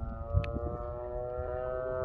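Radio-controlled model airplane's engine running in flight, a steady tone rising slowly in pitch. Low wind rumble on the microphone and one sharp click about half a second in.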